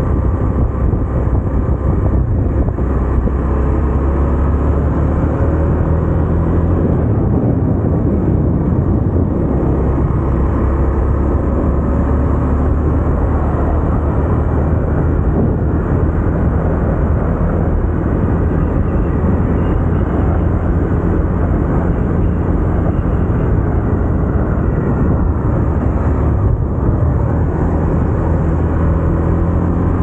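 KTM motorcycle engine running steadily at cruising speed, with wind rushing over the microphone.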